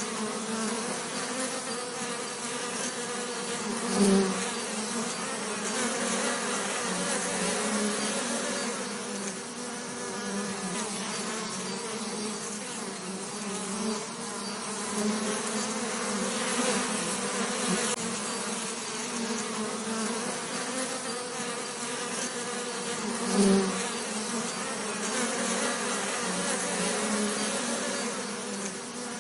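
Bees buzzing in a continuous, steady hum. Twice, about four seconds in and again later, the buzz swells louder for a moment, as a bee passes close.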